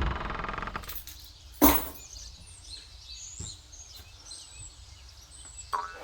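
Small birds chirping faintly and repeatedly, with a ringing sound fading out in the first second, a single loud sharp knock a little under two seconds in, and a softer knock near the end.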